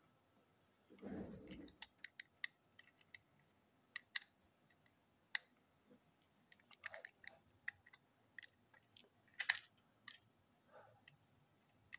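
Small screwdriver working on the plastic body of a TrackMaster toy engine: scattered light clicks and scrapes of metal on plastic, the sharpest about two seconds before the end. A dull handling bump comes about a second in.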